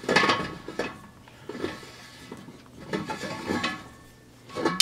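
Metal screw cap of an old soda-acid fire extinguisher being unscrewed by hand: metal threads scraping and clinking in several short spells, roughly once a second, the first the loudest, with brief metallic ringing.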